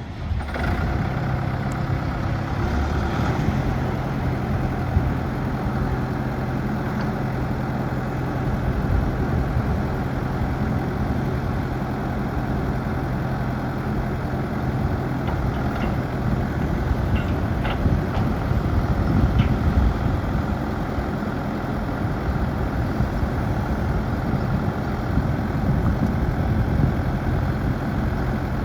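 New Holland LB110 backhoe's diesel engine idling steadily; its idle speed settles a little lower about halfway through.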